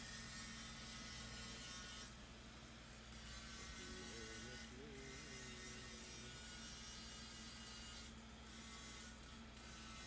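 Faint steady low hum with constant hiss; a faint wavering tone comes in briefly about four seconds in.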